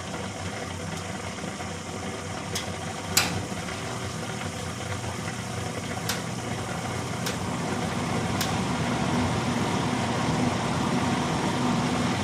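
Newly replaced blower motor in an old gas furnace running with a steady hum and rush of air, growing gradually louder; it runs smoothly. Five sharp ticks sound over the first eight seconds or so.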